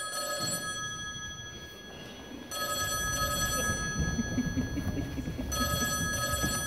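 Telephone ringing in steady bursts of about two seconds, three rings about three seconds apart, the first already going. From about the middle, the shuffle and thud of several children's feet hurrying up carpeted steps runs underneath.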